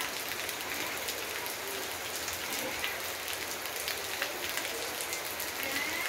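Steady rain falling on garden foliage, with many separate drops ticking through the even hiss. A faint high chirping call comes in near the end.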